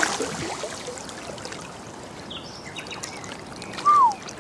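Water sloshing and trickling around a hooked sturgeon in the shallow margin, dying down after a splash. Near the end, one short falling whistle.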